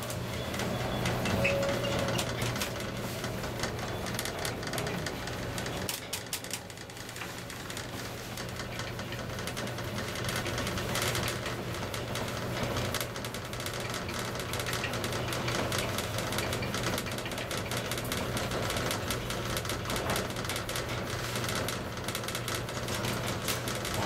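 KONE-modernised passenger elevator car travelling up at speed through its express zone. A steady low hum runs under constant fine rattling and ticking from the moving car.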